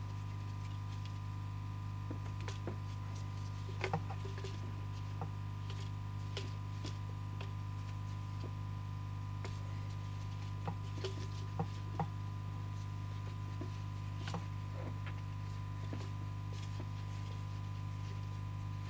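Scattered light clicks and knocks from the plastic housing and parts of a Stihl MS 170 chainsaw being handled and wiggled to work a part loose; the saw is not running. A steady low hum runs underneath.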